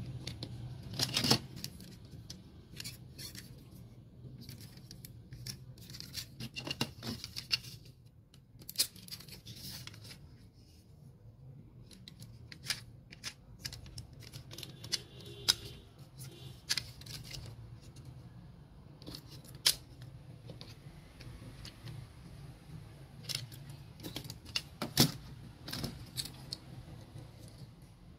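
Diecast and plastic toy trucks clicking and clattering against each other and against a plastic tub as they are picked out and handled, in irregular sharp knocks. A steady low hum runs underneath.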